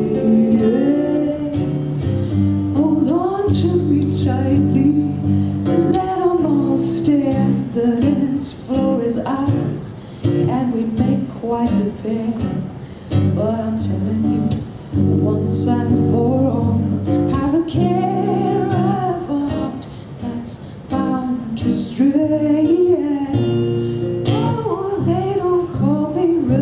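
A woman singing with acoustic guitar accompaniment, the guitar strummed in steady chords under a flowing vocal line.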